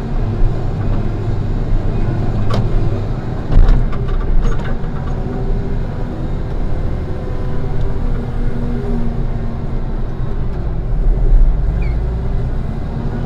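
Construction machinery engine running steadily under load, with a few sharp knocks or clanks between about two and a half and five seconds in.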